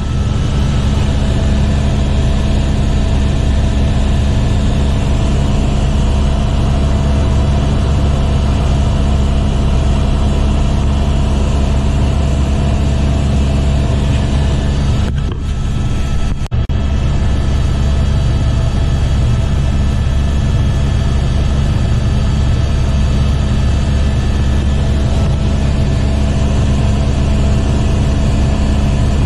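Airbus helicopter's turbine and rotor noise heard inside the cockpit in cruise flight: a steady, loud drone with a low throb and a thin steady whine above it. It dips briefly and drops out for an instant a little past halfway.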